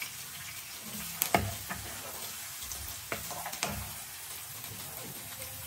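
Diced red onions sizzling in oil in a nonstick frying pan, with a steady hiss. A spoon stirring them knocks and scrapes against the pan a few times.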